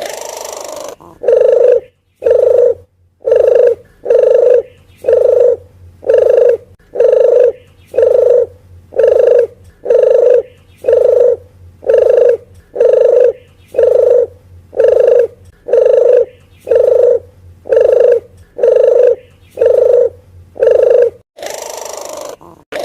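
Puter geni dove lure call: a run of about twenty short, low coos, evenly spaced about one a second. A longer, hissier rolling phrase comes at the very start and again just before the end.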